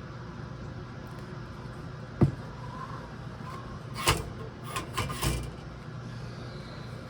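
Small hard objects handled on a workbench: one sharp click about two seconds in, then a few quick knocks and clatters between about four and five and a half seconds, over a steady low hum.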